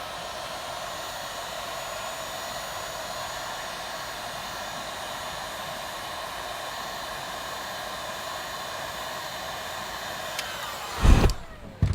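A handheld hot-air blower (heat gun) running steadily. It is switched off about ten and a half seconds in, and its fan winds down with a falling whine. A loud thump and a click follow near the end.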